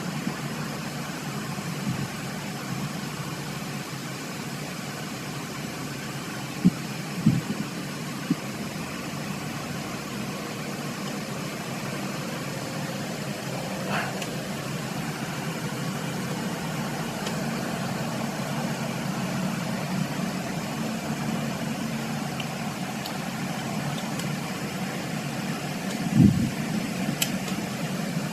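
A steady low machine hum with a few short knocks, two close together about seven seconds in and a louder one near the end.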